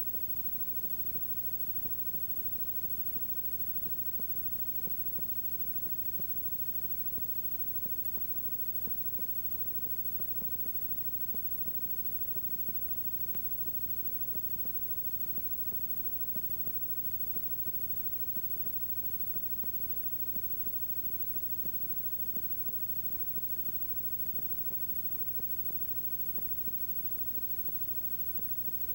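Steady electrical hum with a layer of hiss and faint scattered ticks, unchanging throughout. No sound of the game itself is heard.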